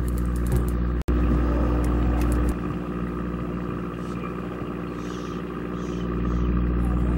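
A fishing boat's engine running with a steady low hum. There is a brief break about a second in, and the deepest part of the hum eases off for a few seconds in the middle.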